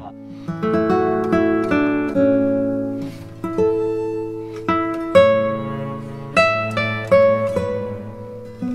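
Background acoustic guitar music: slow plucked notes and chords, each struck and left to ring.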